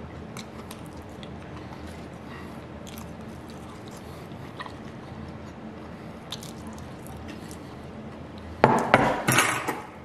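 Cutlery on a plate: a few faint clinks, then a louder clatter of several sharp knocks lasting about a second near the end.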